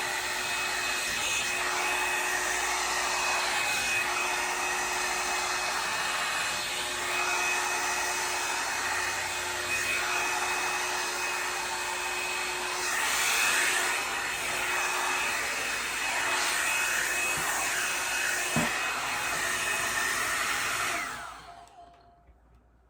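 Revlon One-Step Volumiser hot-air brush dryer blowing steadily with a whirring hum, then switched off near the end, its motor winding down with a falling whine.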